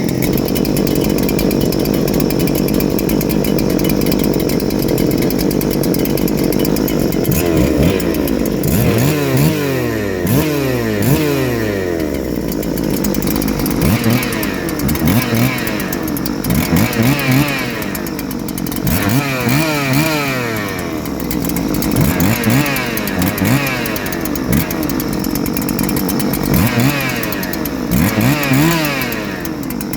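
Big two-stroke chainsaw engine, a Husqvarna 3120XP clone (NH8120), running at high revs for several seconds. Then it is revved up and down over and over, the note climbing and dropping with each throttle blip.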